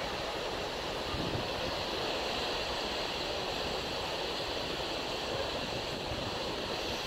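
Steady rushing noise of wind and moving water.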